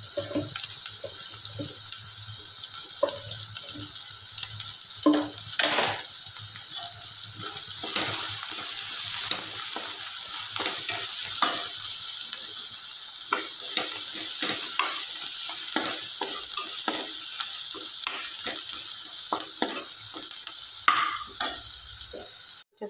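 Green chillies and onions frying in oil in a kadai, a steady sizzle, with a steel spoon stirring and scraping against the pan in many short strokes. The sound cuts out briefly near the end.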